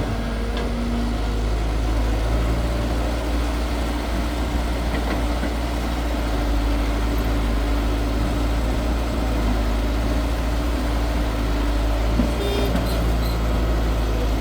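Excavator's diesel engine running at a steady speed, with a brief knock about twelve seconds in.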